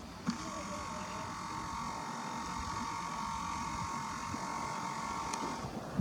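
Camera zoom-lens motor whining steadily, starting with a click just after the start and cutting off abruptly near the end, over faint wind on the microphone.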